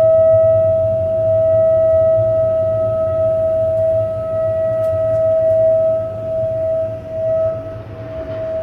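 Household plumbing, the water pipes or the water heater, giving off a loud, steady single-pitched hum with fainter overtones above it and a low drone beneath. The level sags and wavers a little near the end.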